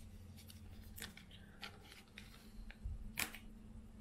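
Small plastic sauce sachet being torn open by hand: faint crinkling and ticks, with one sharper click about three seconds in.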